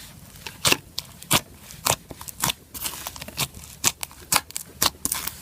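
Minty green foam slime with micro foam beads being squeezed and played with by hand, giving a run of sharp crackles and pops, about two a second.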